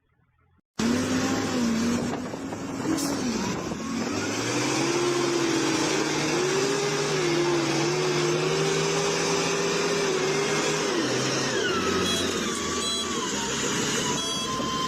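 A motor vehicle engine running, cutting in suddenly about a second in, its pitch rising and falling as it is revved, with rapid beeping near the end.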